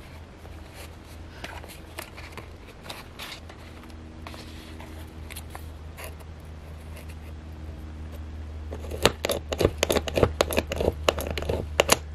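Stiff manila file-folder pages being handled and pressed along the centre crease: scattered light scrapes and taps, then a quick, louder run of sharp clicks and scrapes in the last three seconds.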